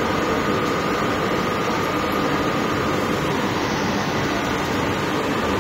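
Metro train running between stations, heard from inside the carriage: a steady rush and rumble of the moving train with a thin steady whine above it.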